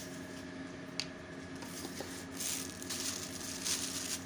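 Quiet handling of spices and a spoon at a steel mixing bowl: a light click about a second in, then soft rustling, over a faint steady hum.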